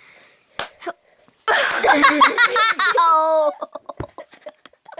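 A child laughing loudly for about two seconds, starting a second and a half in, then trailing off into short breathy bursts, after two short clicks near the start.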